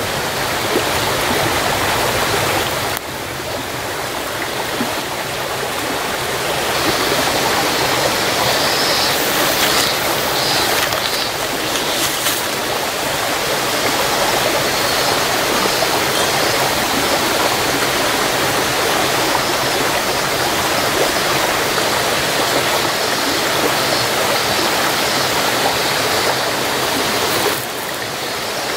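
A stream running steadily, a full, even rush of water; its level dips about three seconds in and again near the end.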